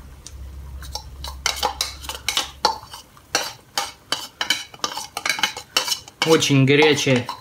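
Metal spoon scraping and clinking against a metal saucepan while stirring melted chocolate, ground peanuts and cocoa powder, with many quick, sharp clicks.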